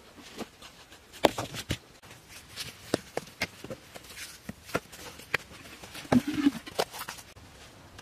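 Stones knocking and clacking against each other as rocks are handled and set in place, in irregular sharp knocks.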